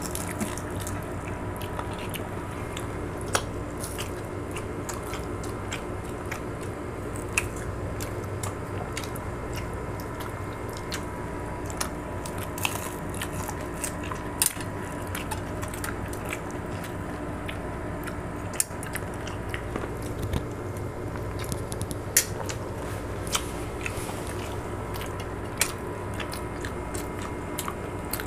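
Close-up eating sounds: chewing and biting, with scattered sharp clicks of a spoon and fork against plates, over a steady hum.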